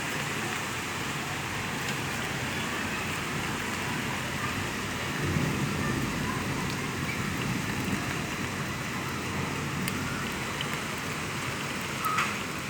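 Steady rain falling and pattering, with a low rumble swelling about five seconds in and a short, sharper sound near the end.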